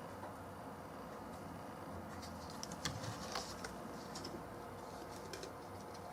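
Faint, scattered light clicks and taps over a low, steady background hum.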